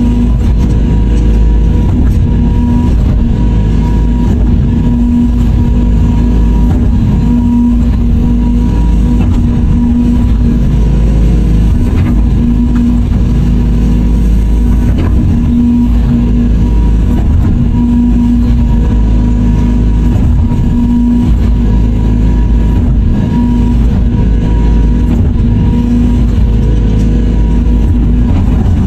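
Radio-controlled scale CAT 336D excavator working, its motors giving a steady loud drone over a low rumble, with a hum that swells in stretches and a few faint clicks.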